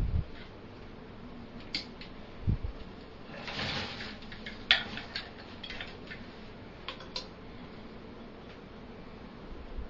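Light clicks and knocks of spinning-wheel parts being handled while the drag band is fitted. A low thump comes about two and a half seconds in and a short scrape a second later. The sharpest click follows soon after, and a few fainter clicks come later.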